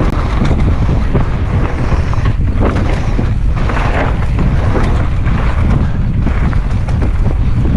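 Water rushing and splashing steadily over a toy ship being washed. The sound is loud and cuts off suddenly at the end.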